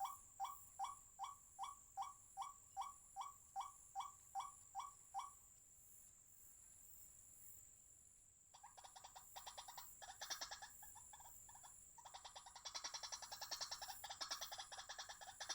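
White-breasted waterhen calling: a run of evenly repeated, rising croaking notes, about five every two seconds, stops about five seconds in. A few seconds later a fast chattering series of croaks starts, and it grows louder near the end.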